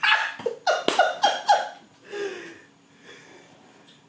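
A man laughing in a quick string of short, loud bursts, each falling in pitch. It tails off into a softer burst about halfway through, then goes quiet.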